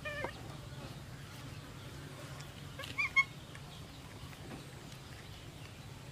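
A baby macaque giving short high-pitched calls: one falling call at the start and two quick chirps about three seconds in.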